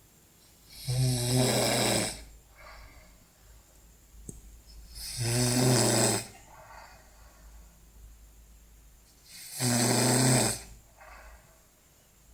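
A person snoring in sleep: three loud, buzzing snores, each about a second long and about four and a half seconds apart, with a softer breath after each.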